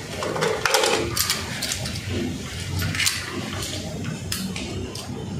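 Scattered sharp clicks and rustling from gloved hands handling the outlet's wires and a wire stripper, over a low steady hum.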